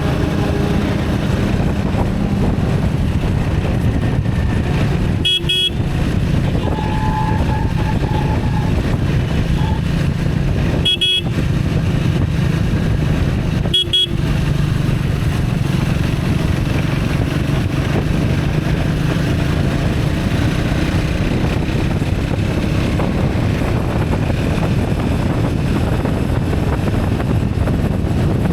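Motor vehicle driving in road traffic: steady engine and road noise, with horns sounding a few times, one of them held for about two seconds.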